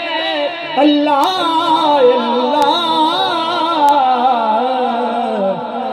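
A man singing Sufi devotional poetry in Urdu over a microphone, drawing out the word 'Allah' into one long, wavering, ornamented melodic line.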